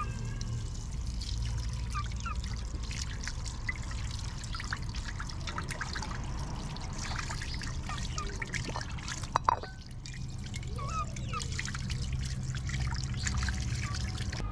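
Tap water running and trickling onto a plate of raw beef as hands rub and rinse the meat. There is a sharp click about two-thirds of the way in.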